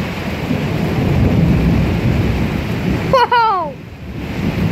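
Thunder rumbling, swelling a second or two in and fading, over steady rain. About three seconds in, a person gives a short exclamation that falls in pitch.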